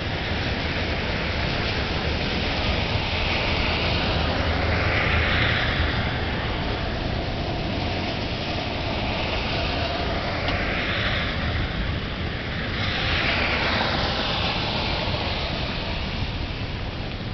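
Steady hiss of heavy rain during a thunderstorm, with a low rumble of wind on the microphone. The hiss swells up and fades away again a few times.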